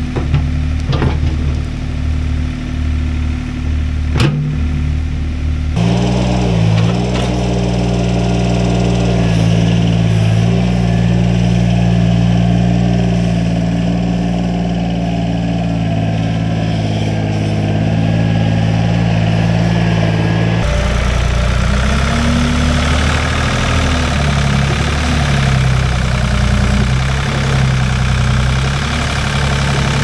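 Ford 555 backhoe's engine running while digging, its pitch shifting as it works, with a few sharp knocks in the first seconds. The engine sound changes abruptly twice.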